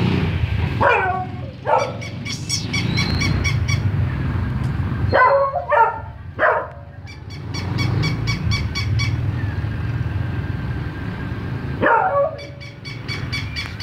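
Short dog barks in clusters: two about a second in, four around five to six seconds in, one near the end. Between them a battery-operated toy dog is walking, its mechanism humming with an even run of clicks.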